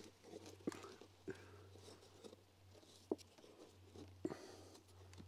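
Faint, sparse clicks and scrapes of a knife cutting birch bark, a few single light ticks spaced a second or more apart, as a gore is cut out of the canoe's bark cover.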